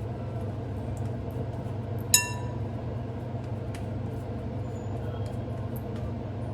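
A single ringing clink about two seconds in, a ceramic plate knocked while minced-meat patties are shaped on it, over a steady low hum and a few faint ticks.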